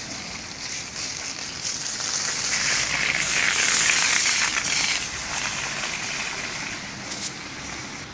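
Heavy rain mixed with hail falling, a steady hissing patter that swells louder in the middle and then eases, with a few sharp ticks.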